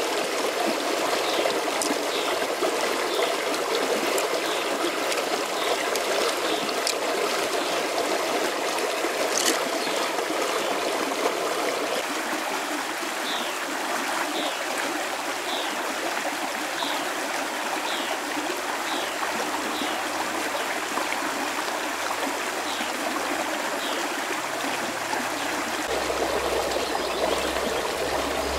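Shallow mountain stream rushing steadily over rocks. A faint high chirp repeats about once a second, with a few light clicks.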